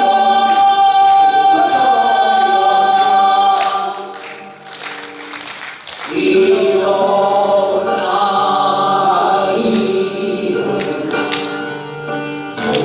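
A group of voices singing a Korean folk song refrain. They hold a long note, fall away about four seconds in, and take up the singing again about two seconds later.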